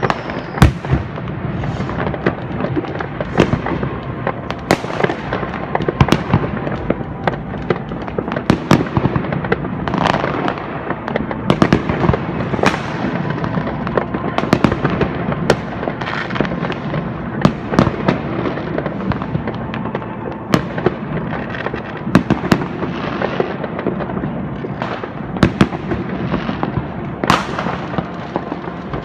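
New Year's Eve fireworks and firecrackers going off continuously: many sharp bangs, pops and crackles in quick, irregular succession over a constant din of distant explosions.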